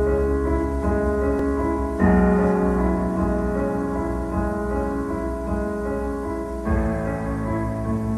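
Slow piano music: held chords, with a new chord struck about two seconds in and again near the end. It is the instrumental intro of a karaoke backing track.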